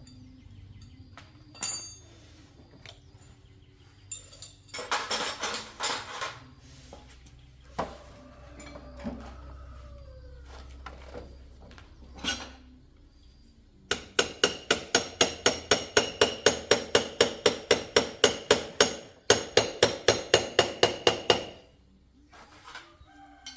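Hammer blows on metal in a fast, even run of about four strikes a second, each with a short ring, pausing briefly and then going on for a couple more seconds. Before that come a few scattered knocks and a short scraping burst.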